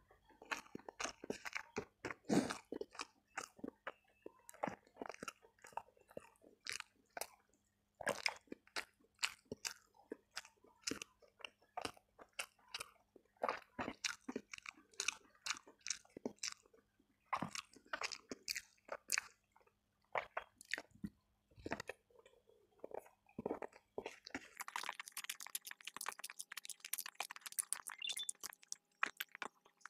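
Close-miked chewing of rice and tempeh eaten by hand: irregular wet mouth clicks and crunches, with a busier stretch of crackling near the end.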